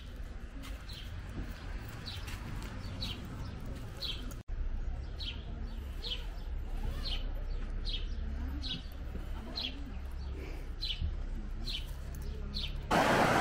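A bird repeating a short high chirp about twice a second. Near the end the sound cuts suddenly to the loud rush of a fast river over rocks.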